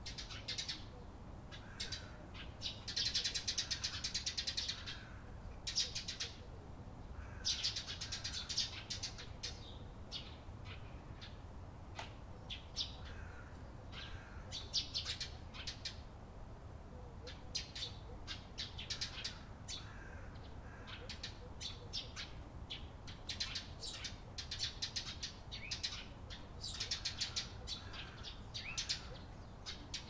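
A flock of Eurasian tree sparrows chirping: many short, high chirps that come in busy clusters every few seconds, with quieter gaps between.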